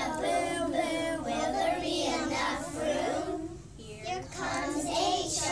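A group of young children singing together in unison, with a short pause about three and a half seconds in.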